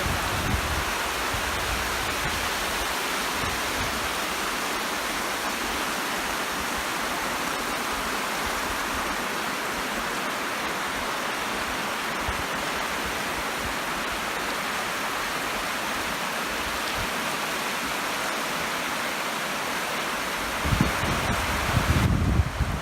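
Waterfall rushing: a steady hiss-like roar of falling water. A few low bumps on the microphone near the end.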